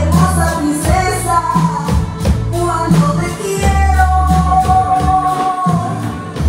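Live band playing a song: a male lead singer over electric guitar, keyboard, bass and drums with a steady beat. About halfway through, the singer holds one long note for roughly two seconds.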